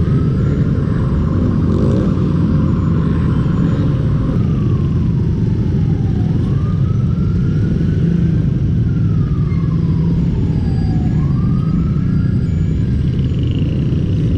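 Motorcycle engine running in a steady low rumble with wind noise, under a siren wailing slowly up and down, about three rises and falls five or so seconds apart.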